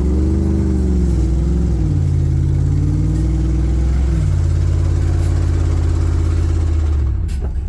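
Car engine revving, its pitch swinging up and down several times, then held steady at high revs until it drops back about seven seconds in.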